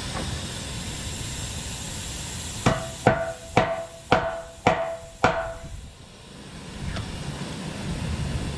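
Six sharp hammer blows on steel, about two a second, each with a short metallic ring, over a steady hiss. A hammer knocks at a cutting-edge nut under a bulldozer blade that has been cut but has fused back onto its bolt.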